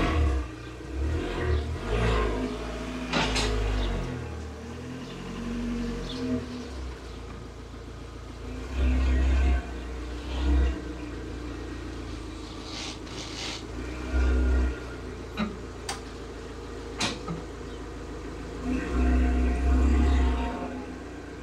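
Abarth 595's 1.4-litre turbocharged four-cylinder engine running as the car creeps forward at low speed, with several short low swells of throttle. A few sharp clicks sound in between.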